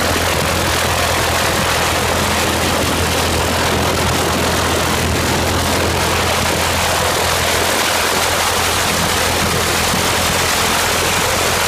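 Homemade valveless U-tube pulse jet engine running steadily at full blast: a loud, unbroken low buzz under a harsh rushing noise, with no change in pace.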